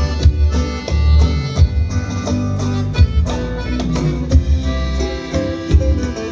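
Live band playing an instrumental intro: a strong bass and a steady beat under guitar and melody lines, with no singing yet.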